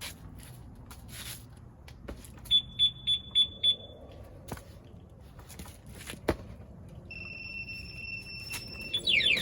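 Aftermarket two-way motorcycle alarm sounding: five quick loud high beeps, a couple of clicks, then a steady high electronic tone, and near the end the siren starts, a loud fast repeating warble.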